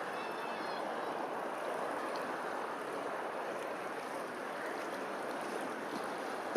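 Steady rushing of running water, with a short high bird call within the first second.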